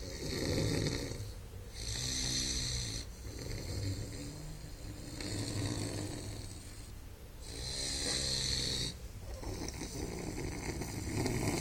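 Dogue de Bordeaux (French mastiff) snoring in its sleep, one snore on nearly every breath, about a snore every second or two.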